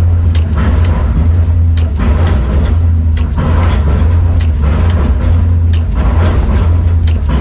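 Heavy machinery engine running with a steady low drone, with sharp knocks about every second and a bit, each followed by a brief swell of noise.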